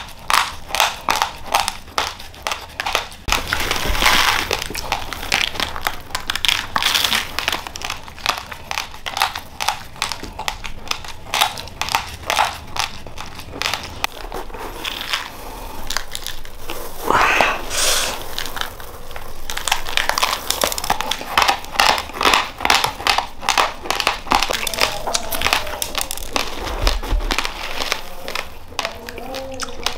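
Raw uncooked rice grains being chewed close to the microphone: rapid, even crunching, with the plastic rice bag crinkling now and then.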